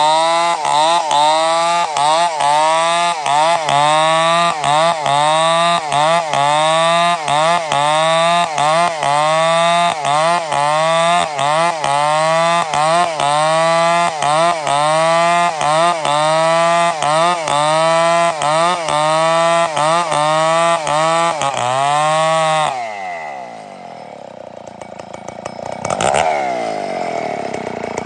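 Stihl two-stroke chainsaw revved in a fast, even rhythm, its engine note dipping and climbing about three times every two seconds. About three-quarters of the way in it drops to a quieter idle, with one brief rev before the end.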